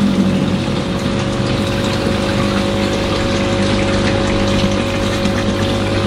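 Aquarium aerator running: the air pump's steady hum with air bubbling up through the tank water.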